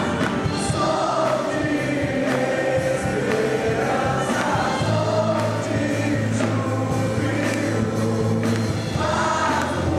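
Music: a choir singing a Christian worship song.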